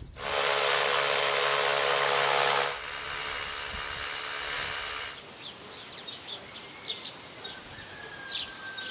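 Power drill boring a hole into the stone wall for a shade-sail wall fixing: a loud, steady whining drill noise for about two and a half seconds, then a quieter stretch of drilling until about five seconds in. After that, a few short high bird chirps sound over a quiet background.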